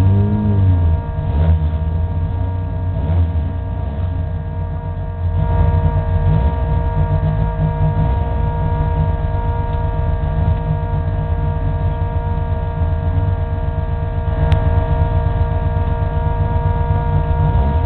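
Race car engine idling steadily, heard from inside the stripped cabin: a low rumble with a set of steady tones over it. A single sharp click sounds about fourteen seconds in.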